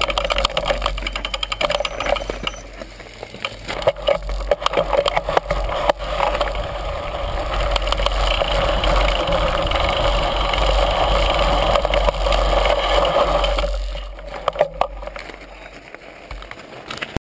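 Mountain bike ridden over rocks and gravel, recorded on a camera mounted on the bike or helmet: the bike and stones rattle and clatter under the tyres, with wind rumble on the microphone. About six seconds in, the clatter gives way to a steadier rushing noise that fades near fourteen seconds.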